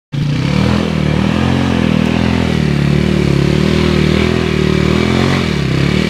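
Dirt bike engine running under load on a forest hill climb, its pitch rising and falling unevenly with the throttle, with a dip in revs near the end.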